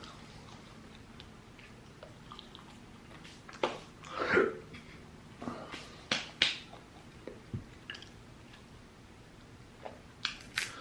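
Close-up mouth sounds of someone eating: chewing with scattered wet clicks and smacks, a few louder bursts in the middle.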